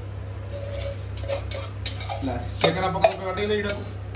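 A spoon stirring and scraping a pot of onion-tomato masala frying in oil, with irregular knocks against the pot and a faint sizzle. This is the masala being cooked down until the oil separates.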